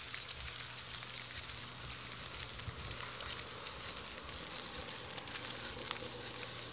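Steady rain falling, with a dense crackle of separate drops ticking sharply over the hiss.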